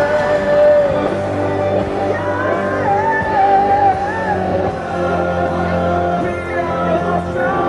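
A song sung by a voice over steady held instrumental chords.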